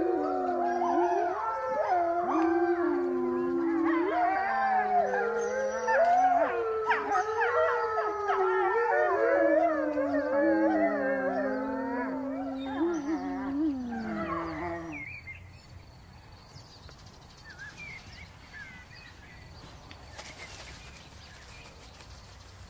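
A pack of grey wolves howling in chorus, several voices overlapping and gliding up and down in pitch, with higher, shorter cries mixed in. The chorus dies away about fifteen seconds in.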